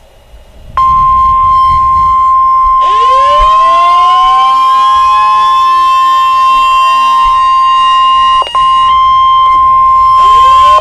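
Weather-radio warning alarm: a loud steady 1050 Hz tone, the signal that a warning message follows. It drops out briefly once near the end. From about three seconds in, a siren-like sound with sliding pitches sounds over it.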